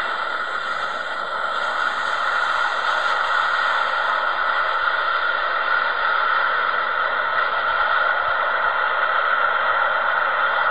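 Jet engine noise from a twin-engine widebody airliner on the runway: a steady, loud rushing noise that rises a little about two seconds in.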